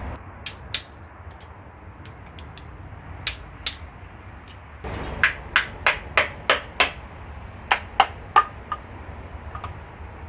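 Hammer strikes on metal while the oil pump is taken off a Honda B20 engine block. A few scattered taps come first. Near the middle there is a quick run of about six sharp strikes, roughly three a second, then three more a little later.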